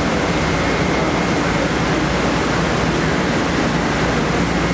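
Steady, loud rushing noise of a wind-wave tank running at high wind speed: air blown over the tank mixes with wind-driven waves churning and splashing behind the glass.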